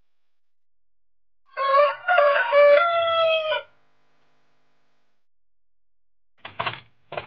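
Gamecock rooster crowing once, a single crow of about two seconds. Two short sharp sounds follow near the end.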